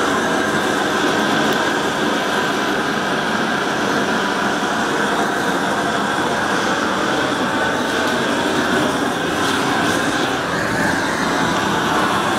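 Steady, even rushing noise of a flame burning off antifouling paint on a boat hull during repair.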